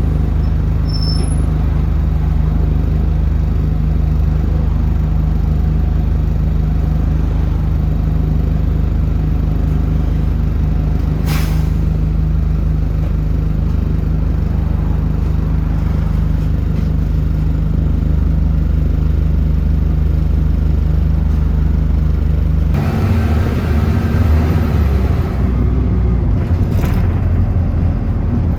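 Bus engine running with a steady low hum; about 23 seconds in the engine note changes and becomes rougher. A single brief click comes about 11 seconds in.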